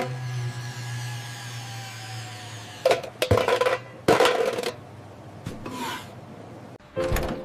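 A tin can rolling across a tiled floor with a low steady rumble, then several sharp metal knocks about three to four seconds in as the fallen cans clatter and settle.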